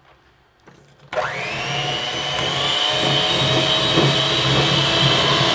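Electric hand mixer switched on about a second in, its beaters running steadily through a thick peanut butter cookie dough in a glass bowl, with a steady high motor whine.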